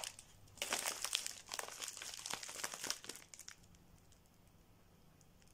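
Crinkling of a plastic mailer package being handled and turned over in the hands, from about half a second in until it stops about three and a half seconds in.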